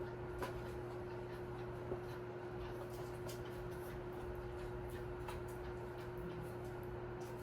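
Quiet room tone: a steady electrical hum with a few faint clicks and taps, two of them a little louder, about half a second and two seconds in.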